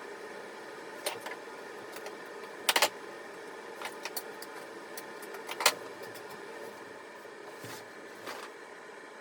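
A few short metallic clicks and clinks of a wrench working on the nuts of a toilet's closet bolts, which will not come off, over a steady hum.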